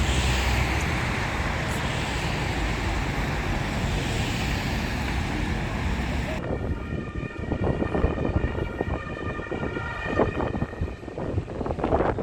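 City street traffic: a large vehicle running close by with a low rumble for the first half. About halfway, it gives way to a steady high tone held over street clatter.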